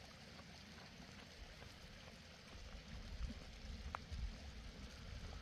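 Steady outdoor hiss with wind rumbling on the microphone, the rumble growing stronger about halfway through, and one faint click near the end.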